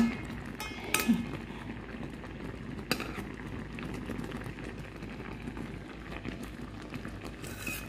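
Pot of eggplant and tomato boiling steadily in a bubbling broth, with a few sharp clinks of a metal spoon against the pot as it is stirred.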